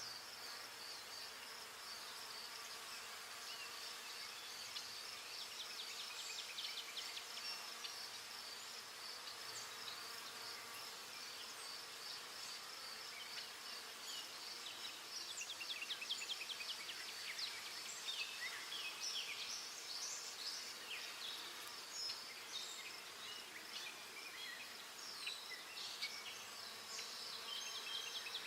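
Forest ambience: a steady, high-pitched insect drone that pulses evenly, with many short bird chirps and trills scattered over it, growing busier about halfway through.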